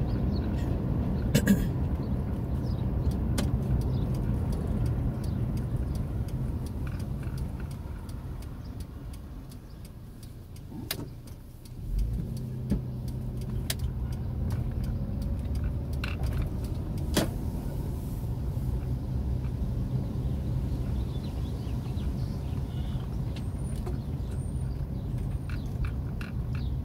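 Car engine and tyre noise heard from inside the cabin while driving slowly. It quiets as the car eases off about nine seconds in, then picks up again with a steady engine hum as it pulls away around twelve seconds, with a few scattered clicks.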